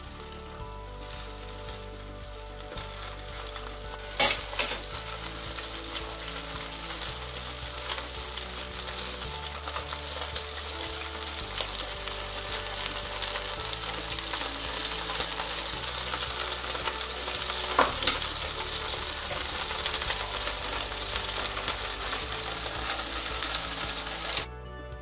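Salmon fillets frying in hot oil in a nonstick pan, a steady sizzle that grows louder, with two sharp taps along the way. The sizzle cuts off suddenly just before the end.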